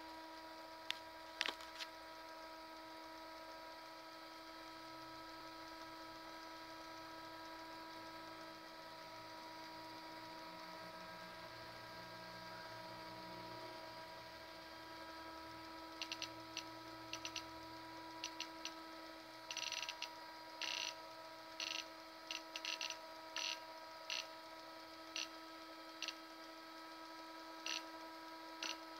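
A steady electrical hum made of several fixed pitches from the bench equipment. A few sharp clicks come in the first couple of seconds, and in the second half a run of short, irregular crackling bursts joins it.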